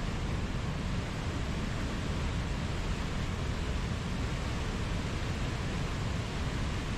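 Flowing water making a steady, even noise, heaviest at the low end.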